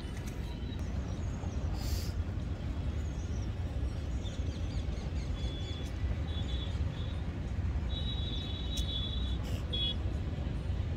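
Outdoor ambience dominated by a steady low rumble of wind on the microphone, with a few short high-pitched bird calls from about four seconds in.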